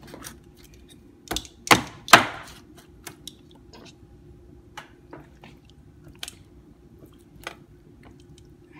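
A large kitchen knife cutting fat and skin off a raw whole chicken on a cutting board: scattered knocks and clicks as the blade and meat hit the board, the loudest three close together about a second and a half to two seconds in.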